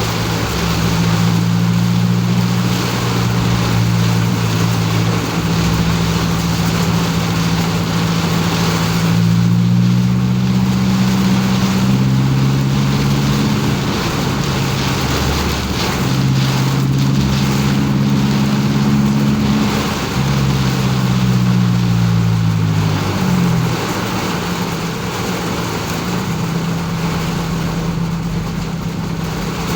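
Car engine hum heard from inside the cabin while driving on a wet road. Its pitch steps up and down several times as the speed changes, and falls off quickly near the end, over a steady hiss of tyres on wet pavement and rain.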